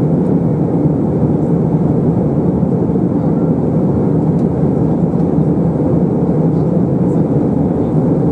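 Steady in-flight cabin noise inside an Airbus A321, a low, even drone of the engines and the rush of air over the fuselage.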